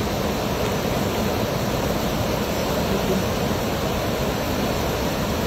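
Steady rushing of flowing river water, an even noise with no distinct splashes.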